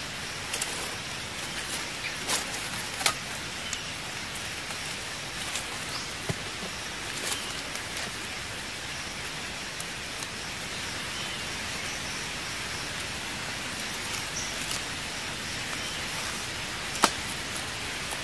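Scattered sharp clicks and small snaps of a thin stick and a pliable stem being worked and bent by hand, the loudest click near the end, over a steady outdoor hiss.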